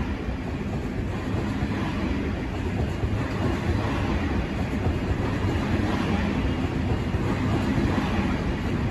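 Sydney Trains A set (Waratah) double-deck carriages rolling past a platform: a steady rumble of wheels on rails with some clickety-clack, growing slightly louder about three seconds in.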